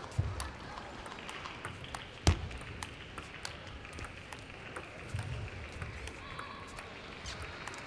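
Table tennis ball being hit by rubber-faced bats and bouncing on the table during a rally: sharp clicks at uneven intervals, the loudest about two seconds in.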